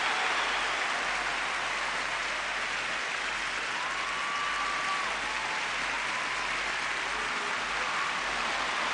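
A large audience applauding steadily after the song has ended.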